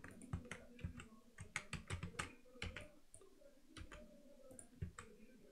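Computer keyboard keystrokes and mouse clicks: a quick, uneven run of light taps.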